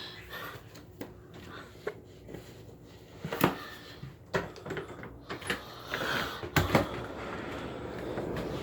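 Scattered knocks and clicks of household handling, like a cupboard or door being moved, with the loudest knocks about three and a half seconds in and again near seven seconds.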